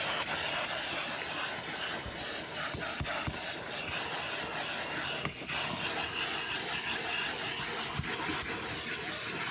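Vacuum cleaner running steadily as its nozzle is worked over car floor carpet, with a few light knocks.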